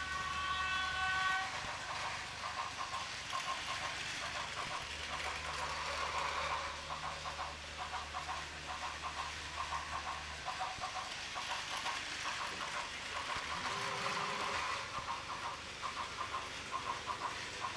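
Plarail battery-powered plastic toy train running on plastic track: a steady rapid clicking clatter of wheels and gearing. A short horn-like tone sounds in the first second and a half.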